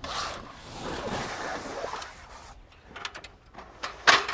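A rooftop tent's ladder being slid and handled: a scraping, sliding noise for about two and a half seconds, then a few light clicks and a sharp clack near the end.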